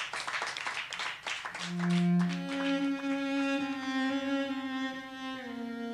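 Cello played solo with the bow. It opens with quick, scratchy short strokes, about eight a second, then settles into long held notes, often two strings at once, that step downward.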